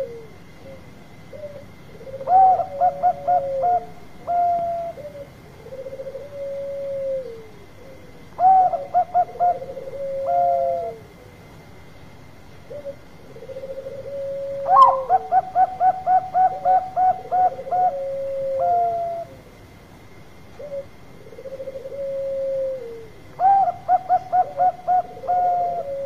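Zebra doves (perkutut) cooing: four phrases of quick stuttering notes, each ending in a drawn-out note, overlapped and alternated with lower, longer coos that fall in pitch at the end, about one every two to three seconds.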